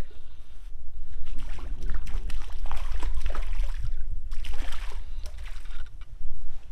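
A hooked crappie splashing and thrashing at the water's surface as it is reeled in to the boat, over a steady low rumble.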